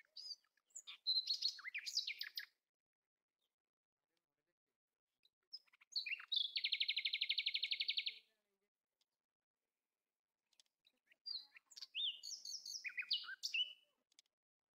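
A bird singing three phrases of high chirps and whistles with pauses between them, the middle phrase a rapid even trill lasting about two seconds.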